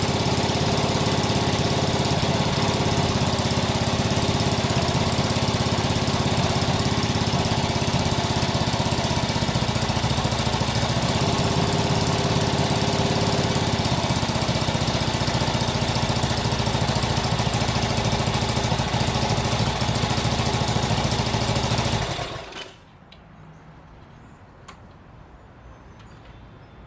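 1967 Honda CB77 Super Hawk's 305 cc air-cooled parallel-twin engine running steadily, freshly restarted after years of storage and running very rich by the owner's account. Near the end the engine sound stops abruptly.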